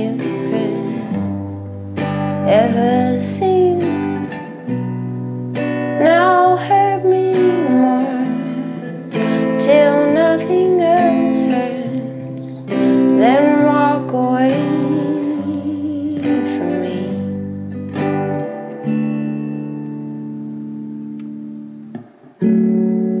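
A slow song: a woman singing over guitar accompaniment.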